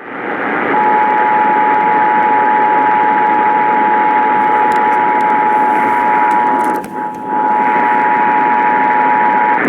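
Emergency Alert System attention signal, the two-tone 853 Hz and 960 Hz alarm, held steady for about nine seconds, heard over AM radio under a heavy hiss of static that briefly fades about seven seconds in. The tone announces an emergency alert broadcast, here an Amber Alert.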